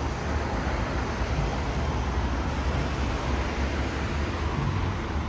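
Steady road traffic from cars driving along a multi-lane road: an even wash of tyre and engine noise with a heavy low rumble.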